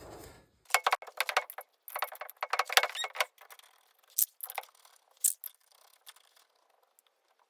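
Light metallic clicking and jingling of hand tools and small metal parts being handled at a car's rear wheel hub. It comes in quick clusters in the first three seconds, then a few single clicks.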